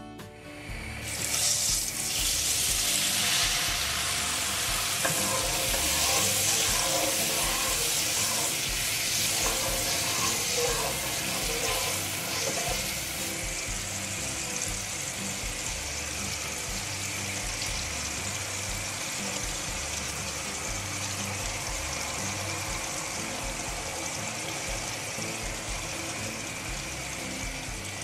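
Spice masala in hot oil in a nonstick pan, starting to sizzle sharply about a second in, with a fuller, wetter bubbling for the next several seconds. After about thirteen seconds it eases to a steady, quieter sizzling simmer. Faint background music runs underneath.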